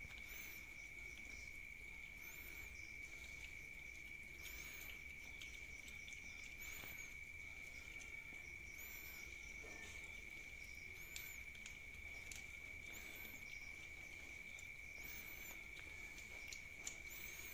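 Several cats licking and chewing wet cat food from a pouch, faint wet smacking and clicks, over a steady high-pitched insect trill.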